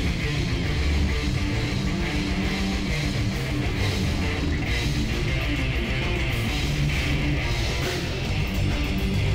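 Heavy metal band playing live: electric guitars with drums and bass in a dense, continuous wall of sound.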